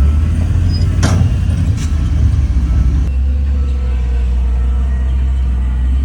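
Heavy earthmoving machine's diesel engine running with a deep, steady drone, with two sharp metallic clanks about one and two seconds in.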